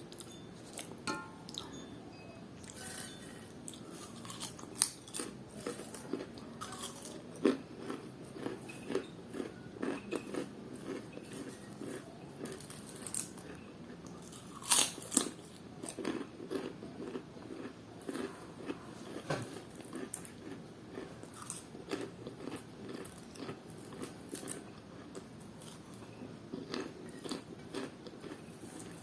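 Close-miked chewing and biting of crunchy fried snack food: irregular crisp crunches and mouth sounds, with a few louder bites.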